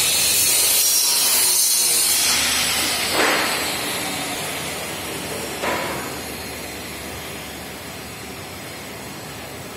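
Shade-net double-fold rolling machine running, with a loud, even hiss that is strongest for the first few seconds and then slowly fades. Two short swishes come about three and six seconds in.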